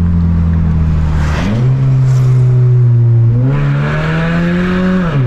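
Honda Civic 2.0 four-cylinder engine accelerating with its exhaust cutout open, giving a loud, raspy exhaust note. The pitch climbs about a second and a half in, holds, climbs again from about three and a half seconds, then drops sharply near the end.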